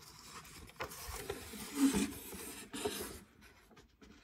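Pages of a picture book being turned by hand: paper rubbing and rustling, with a few small knocks and a soft bump about two seconds in.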